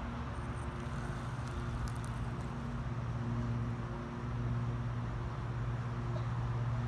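A steady low motor hum with a few evenly spaced overtones, rising and falling slightly in level.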